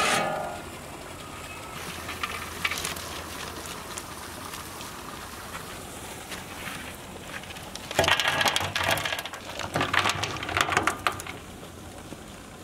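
Aluminium cookware clattering: a lid and a strainer knock and scrape against the big pot and the serving trays as boiled mutton is lifted out of its stock. There are two bursts of rapid clatter, about eight and ten seconds in, over a low steady background.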